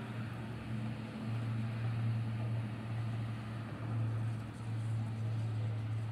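Distant low rumble of passing vehicles, an intermodal freight train's wagons on the line and cars on the road overpass, heard as a steady low hum.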